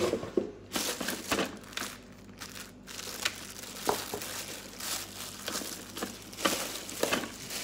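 Clear plastic bag crinkling and rustling as it is handled and pulled off a small kitchen appliance, with irregular crackles throughout.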